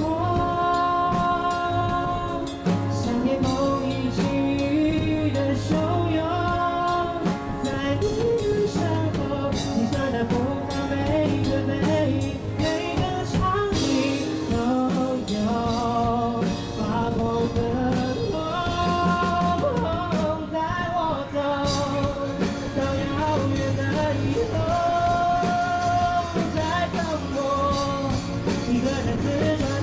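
Live band performance: a lead singer sings a melody with held, wavering notes over keyboard, guitars, bass and drums at a steady beat.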